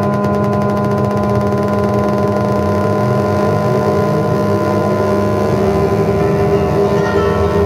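Experimental electronic music: a loud, steady synthesizer drone of several held tones, with a fast high pulsing that fades out in the first second or so.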